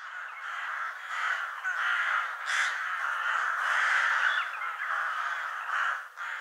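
A flock of crows cawing, many calls overlapping into a dense, continuous chorus.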